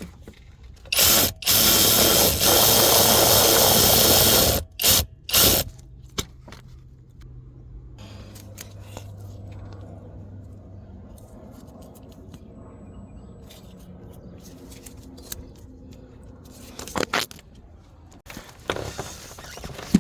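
A power tool runs on bolts during an engine teardown: one loud run of about three and a half seconds, then two short bursts. Scattered clicks of parts being handled follow.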